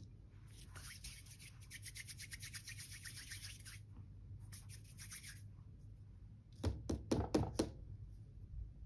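Hands rolling a small lump of air-dry clay between the palms and fingers, a faint, fast rubbing, followed by a quick run of about five louder taps.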